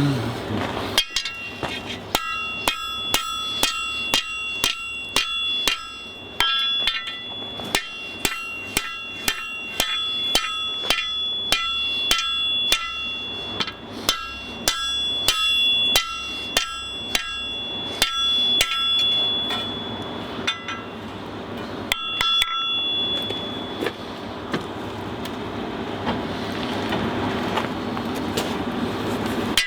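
Hand hammer striking hot steel on an anvil in a fast, steady run of blows, about two a second, with the anvil ringing after each one. The blows stop about three quarters of the way in, leaving a steady rushing noise.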